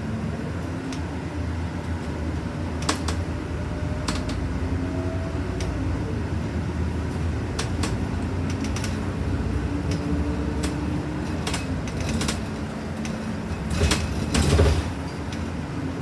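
New city bus running, heard from inside the cabin: a steady engine and drivetrain rumble with a faint whine that rises and falls in pitch, a few sharp rattles, and a louder clatter near the end.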